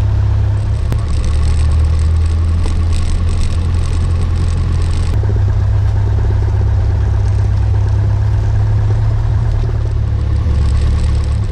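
Light aircraft's piston engine and propeller droning steadily, heard from inside the cockpit; its tone shifts once about five seconds in.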